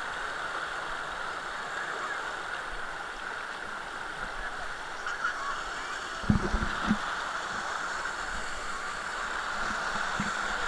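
Steady rush of flowing water, with a few short low thumps about six to seven seconds in.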